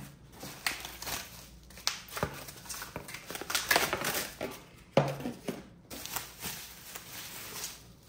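Plastic bubble wrap crinkling and cardboard packaging rustling and scraping in irregular bursts as a handheld vacuum is pulled out of its box insert.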